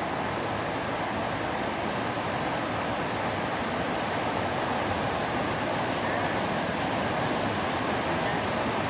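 Steady rushing of river water, an even hiss without any change.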